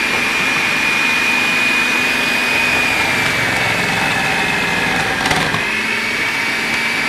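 Anex electric food processor running steadily and grating carrots pushed down its feed chute, with a high motor whine. There is one short knock about five seconds in.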